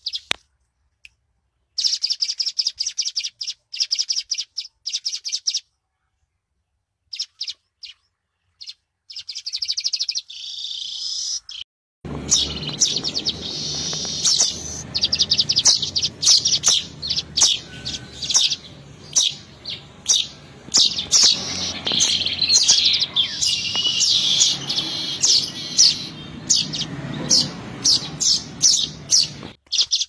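Manyar weaver bird singing: runs of rapid, dry chattering and sharp high chips broken by short silent pauses. About twelve seconds in, a low background hum comes in suddenly and the chips become a denser, near-continuous stream.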